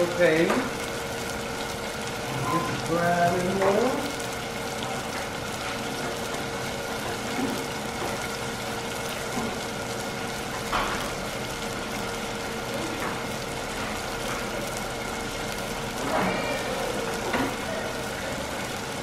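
Butter bubbling in a saucepan and onions simmering in a pot on a gas stove, a steady sizzle under a steady hum. A few short rising vocal cries come at the start, around three seconds in, and near the end.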